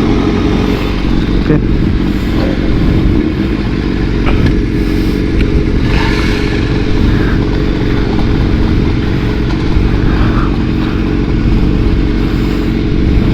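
Motorcycle with an Austin Racing aftermarket exhaust running steadily, loud and deep.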